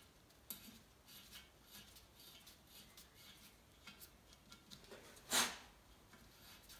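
Small clicks and scrapes of nuts and washers being fitted by hand onto the rocker cover studs. A louder, brief rushing noise comes about five seconds in.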